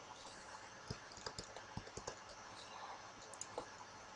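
Faint, irregular clicks and taps of a computer keyboard and mouse in use, most of them bunched between about one and two seconds in, over quiet room tone.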